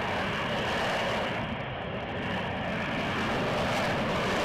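F-35B Lightning II hovering in STOVL mode: its F135 jet engine and shaft-driven lift fan give a steady rushing jet noise that grows slightly louder.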